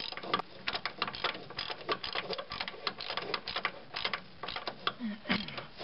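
18 mm open-end wrench working the nut on a lower control arm mounting bolt: a rapid, irregular run of metallic clicks and clinks.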